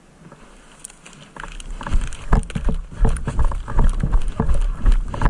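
Heavy, irregular footfalls and rustling clatter of gear, as of a player running, starting about a second and a half in.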